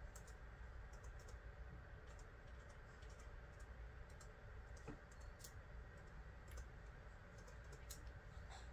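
Faint, irregular keystrokes on a Dell laptop keyboard, typing in a login, over a low steady room hum.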